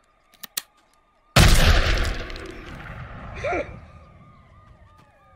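A semi-automatic pistol is handled with two small clicks, then fires a single shot about a second and a half in, and the shot's echo fades out slowly. A short startled cry follows the shot, and police sirens wail faintly throughout.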